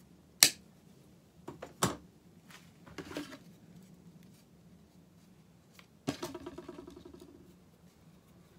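Hand work with a screwdriver and a small piece of wood: a few sharp clicks and knocks, then a sudden clatter about six seconds in that rattles on and dies away over about a second and a half, like something hard set down or dropped.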